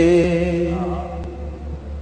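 A man singing a naat holds the last word of a line on one steady note, which fades out about a second in. A low steady hum is left under it.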